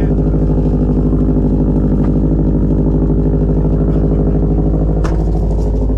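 2010 Subaru WRX's turbocharged flat-four engine idling steadily through an aftermarket exhaust pipe, super loud with an even, rapid pulse.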